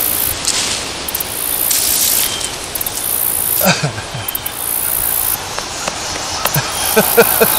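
Hands scraping and rustling through dry mulch and loose soil, digging out a sweet potato, with small crackles and clicks throughout.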